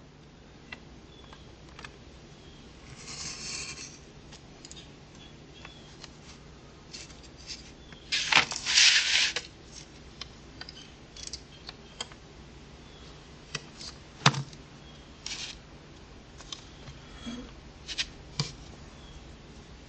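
Utility knife cutting through a sheet of leather, a rasping scrape that is loudest for about a second and a half some eight seconds in, with a softer scrape earlier. Scattered clicks and knocks of tools being handled and set down on the workbench.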